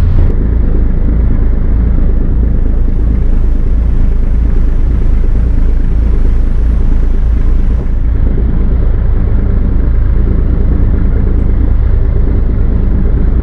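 A tugboat's diesel engine running steadily while the tug tows a loaded coal barge, heard on its own deck as a loud, even low rumble.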